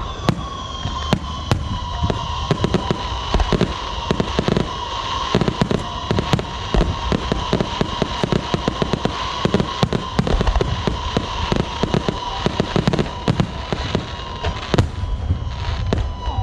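Fireworks and firecrackers going off in a dense, irregular string of bangs and crackles, with a steady high tone running under them and a few falling whistles near the end.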